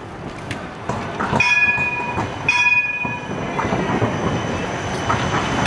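A GVB Siemens Combino tram rolls through a curve on street track. Two short, high ringing tones of several pitches come about a second apart, starting over a second in.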